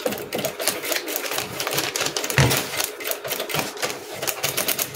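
Sewing machine running, stitching pleated tulle onto a paper sleeve pattern as a rapid run of needle clicks.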